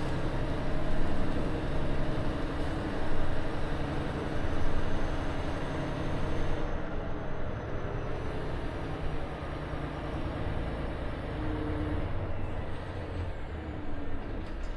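Volvo FH 460 truck's 13-litre straight-six diesel running at low revs, heard inside the cab as the truck crawls along at walking pace.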